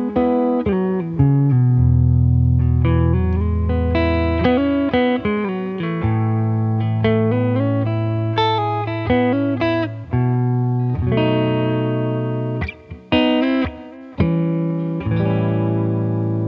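SQOE SETL980 Telecaster-style electric guitar played through an amp: a melodic line of single notes with string bends over held low notes, with a couple of brief pauses between phrases.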